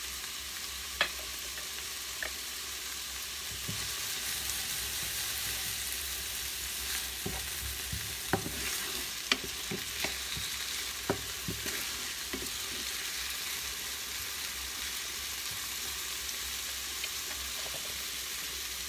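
Sliced artichokes cooking in a pan with pasta water, sizzling steadily, with a few light clicks scattered through, most of them around the middle.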